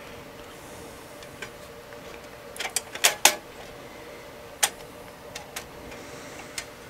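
A few sharp clicks and knocks of computer hardware being handled and fitted, the loudest a quick pair about three seconds in and another near the five-second mark, over a faint steady hum.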